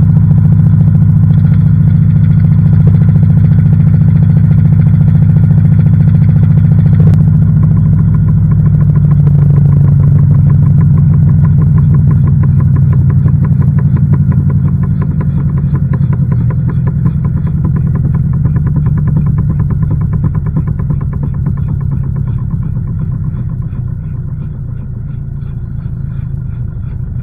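LG washing machine drum spinning, heard from inside the drum: a loud, steady low hum that gradually eases off over the second half, with a fast regular pulsing coming through as it fades. A single click sounds about seven seconds in.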